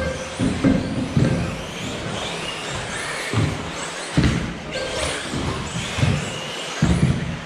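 Several 1/10-scale electric 2WD off-road RC buggies racing together: their motors whine, rising and falling in pitch as they accelerate and brake, over tyre noise, with about seven short thumps of cars landing or hitting the track.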